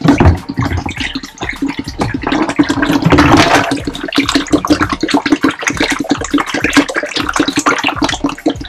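Liquid descaler concentrate pouring from an upturned plastic jug into a flexible plastic bucket, with a continuous, uneven splashing that runs without a break.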